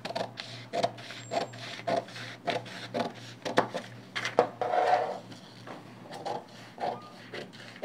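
Scissors cutting through stiff kraft pattern paper: a run of irregular snips and scrapes, with the paper rustling and sliding on the table and a longer scratchy stretch about halfway through.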